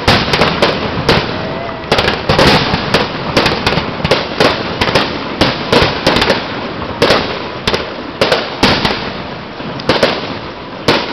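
Aerial fireworks bursting in a rapid, irregular series of loud bangs, often two or three a second, with a rumbling echo between the bursts.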